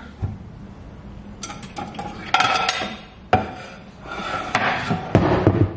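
Ceramic plates and bowls clinking and knocking against each other as dishes are taken down from a stacked kitchen shelf, a series of sharp clinks with a low scraping rumble near the end.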